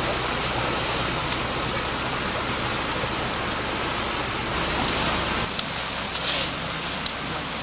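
Rubber wader boots splashing through a shallow stream over the steady hum of an electrofishing generator. Near the end the hum drops away and a few sharp clicks and a brief rustle come through.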